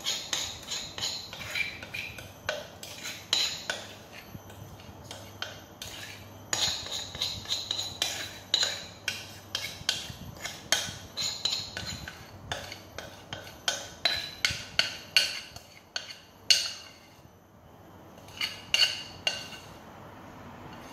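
Spatula scraping and knocking against a glass mixing bowl as thick brownie batter is scraped out. It is an irregular run of quick scrapes and clicks, some with a short ringing note, with a brief pause a few seconds before the end.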